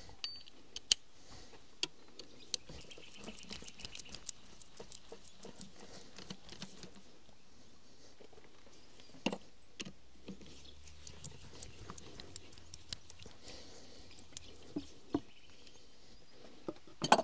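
Scattered light clicks and metal taps from a socket speed brace fitting onto and turning the tappet cover bolts of a Detroit Diesel 8V71 engine, with a few sharper knocks along the way.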